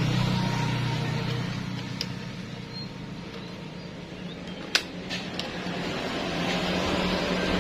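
A motor vehicle engine running steadily, easing off in the middle and growing louder again toward the end. A single sharp click comes about five seconds in.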